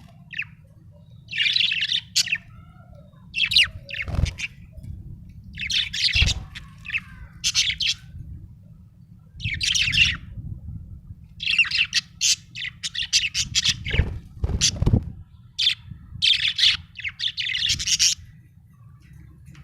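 Budgerigar chirping and chattering in short bursts of high, quick notes with brief pauses between them. A few soft low thumps come in between.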